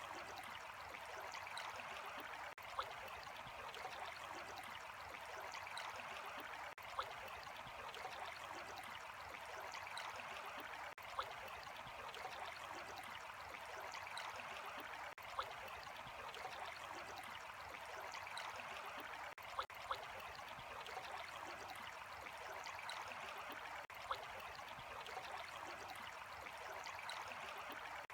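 Running water flowing steadily, an even trickling wash, with a brief sharp click about every four seconds.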